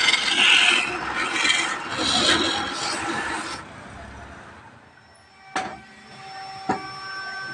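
Turning tool cutting into a spinning wooden blank on a lathe: a loud rough scraping in several strokes as shavings fly off, stopping about three and a half seconds in. After it come two sharp clicks and a faint steady tone.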